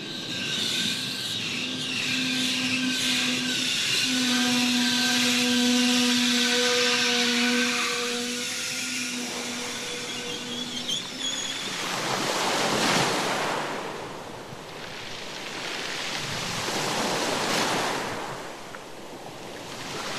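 A train running in with a steady whine of several held tones for about ten seconds, then surf breaking and washing up a beach, swelling and falling back every four or five seconds.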